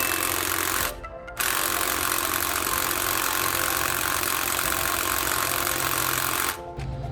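Bosch GDS250-LI cordless impact wrench hammering on a lug nut. The trigger is let off for a moment about a second in, then the wrench hammers again for several seconds and stops near the end.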